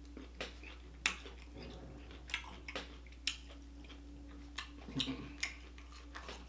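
Close-miked eating sounds: sporadic soft mouth clicks and smacks of chewing, spaced irregularly a few times a second at most.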